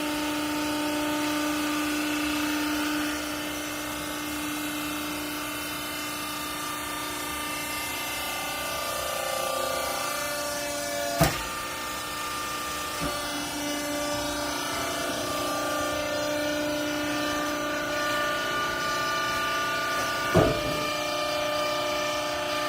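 Hydraulic baling press running: a steady machine whine made of several held tones that shift in pitch as the load changes, with two sharp knocks, one about halfway through and one near the end.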